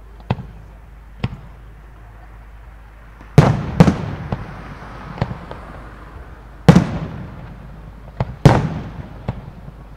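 Professional display firework shells bursting overhead: two light pops, then a loud pair of booms about three and a half seconds in and two more near seven and eight and a half seconds, each trailing off in echo, with smaller pops between.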